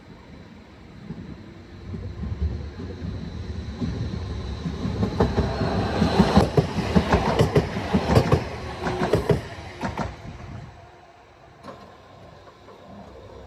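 Stadler Tango light-rail tram-train passing close by, its wheels clattering over the track with a quick run of clicks. The sound builds for several seconds, is loudest in the middle, and falls away suddenly about ten seconds in.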